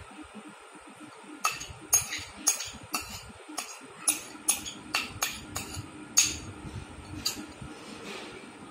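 Metal spoon clinking against an upturned ceramic bowl, about a dozen quick, uneven strikes as the curry is knocked and scraped out onto a plate.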